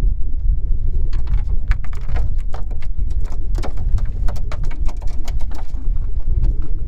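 Steady low rumble of wind buffeting the microphone aboard a fishing boat, with a quick irregular run of sharp clicks and ticks from about a second in until past the middle.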